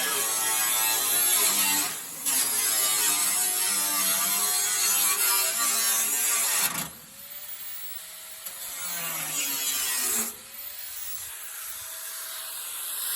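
Straight die grinder cutting through sheet metal with a harsh, loud grinding, briefly easing off about two seconds in. About two-thirds of the way through the wheel comes off the metal: the grinder runs lighter and quieter, its pitch rising, touches in again briefly, then runs free with its pitch climbing once more.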